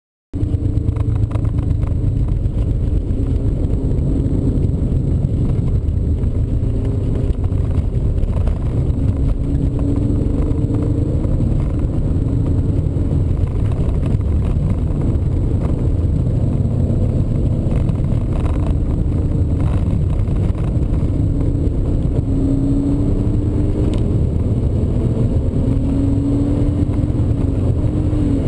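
In-cabin sound of a BMW E36 320i's 2.0-litre straight-six being driven hard on a track, its engine note rising and falling through the revs over a heavy low rumble. It cuts in sharply just after the start.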